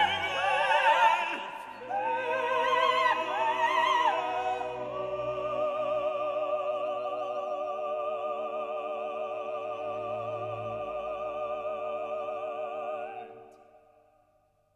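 Classical music with operatic singing: voices with wide vibrato over an orchestra, settling into a long held chord that fades out near the end.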